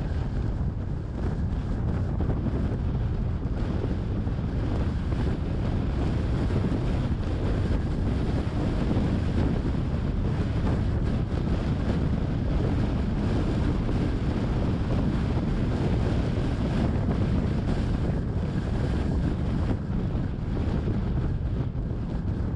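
Wind buffeting the microphone of a moving car: a steady low rumble of wind and driving noise with no distinct events.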